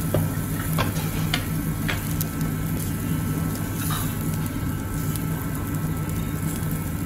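Steady low hum of a barbecue restaurant's room, with a few light clicks in the first two seconds and another about four seconds in.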